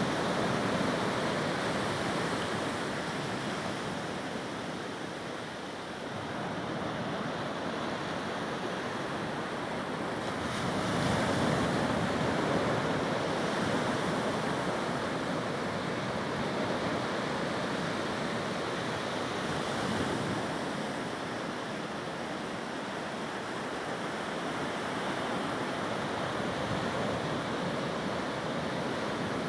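Ocean surf washing onto the shore: a steady rushing noise that swells about eleven seconds in and again around twenty seconds, with wind.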